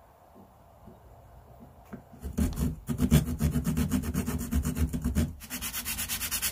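A fine-tooth hand saw working back and forth in the bib slot of a small wooden lure body held in a vise, starting about two seconds in, to widen the slot for the lure's bib. About five seconds in it changes to folded sandpaper rubbed quickly in the slot, in faster, even strokes.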